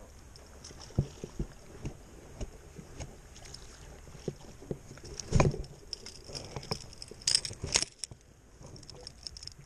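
Close handling noise from an angler on a brushy bank: scattered clicks and knocks of the rod and reel, a louder thump about five seconds in, and two short rustles near the end as a sleeve brushes through dry grass and shrubs.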